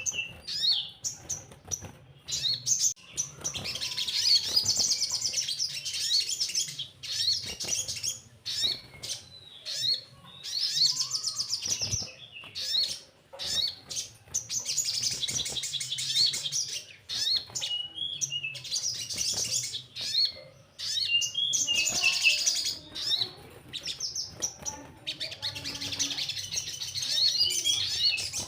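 Sogon (a small sunbird) singing in rapid, high twittering trills, in phrases of a few seconds broken by short pauses.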